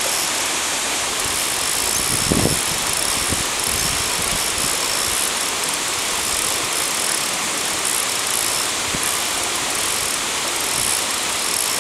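Rushing river water, a steady noise of the current running over rocks, with one low thump about two seconds in.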